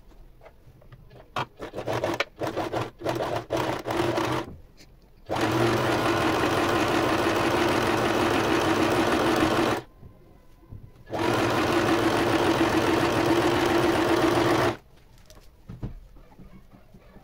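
Domestic electric sewing machine stitching a seam through knit fabric, closing a sleeve: a few short start-stop bursts of stitching, then two steady runs of about four seconds each with a brief pause between.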